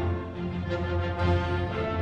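Music: a song with sustained held notes over a steady bass.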